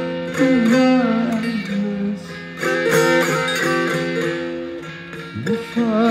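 A man singing a wavering, wordless melody over a plucked long-necked string instrument, its strings ringing with steady held notes and a drone.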